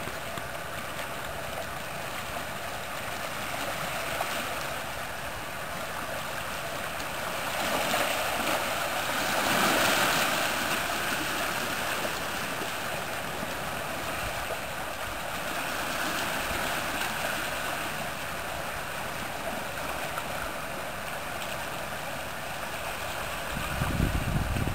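Shallow sea water washing and lapping over shoreline rocks, swelling louder about eight to ten seconds in. A low rumble comes in near the end.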